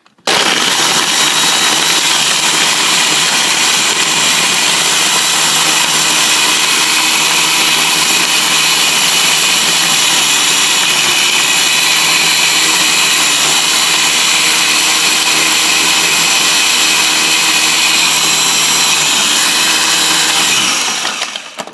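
Ninja blender motor running at full speed, its power head held down by hand, blending a liquid smoothie mix. It starts abruptly, runs steadily and loudly for about twenty seconds, then winds down near the end.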